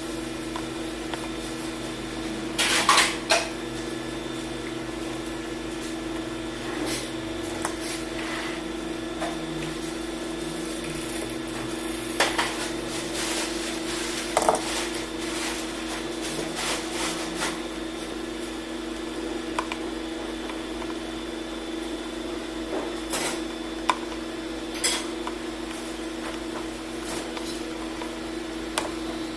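Tools and the blender's hard plastic and metal parts being handled on a workbench: scattered clicks, taps and clattering knocks, a cluster of them about three seconds in, over a steady background hum.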